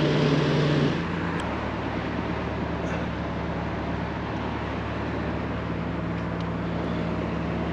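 A motor cruiser's engine running steadily under way, a low even drone with water and wind noise; the tone shifts slightly about a second in.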